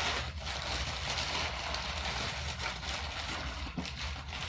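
Rustling and crinkling of packing wrappings as a small shipping box of orchids is unpacked by hand, over a steady low hum.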